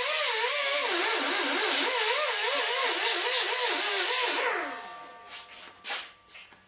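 Small hand-held die grinder with a sanding disc grinding the steel of a propane tank around a drilled hole, cleaning it to bare metal ahead of TIG welding. Its whine wavers up and down in pitch as it is pressed and rocked against the metal, over a loud hiss of abrasive on steel. About four and a half seconds in it is let off and spins down, followed by a few light knocks.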